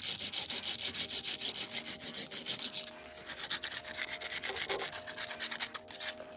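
Rusty metal blade scraped rapidly back and forth in a joint between the bricks of a brick oven's arch, a harsh rasping of quick strokes. It pauses briefly about three seconds in, then resumes and stops just before the end.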